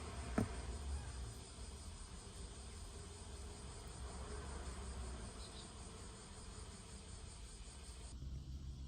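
Faint, steady insect chirring in the background, with one sharp click about half a second in.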